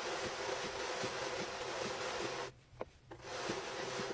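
Fibre being brushed down onto the turning, wire-clothed drum of a drum carder: a steady scratchy brushing noise that stops about two and a half seconds in and starts again shortly after.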